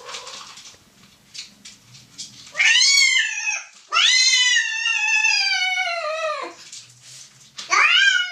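A female cat yowling while a male mounts and mates her. After a couple of quiet seconds she gives a short yowl, then one long yowl that slowly falls in pitch, then starts another near the end.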